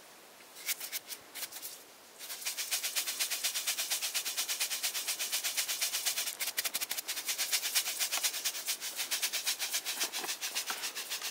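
Ammonium nitrate granules and aluminum powder rattling inside a plastic container shaken hard in quick, even strokes, mixing the two parts of tannerite. The shaking is sparse for the first two seconds, then steady.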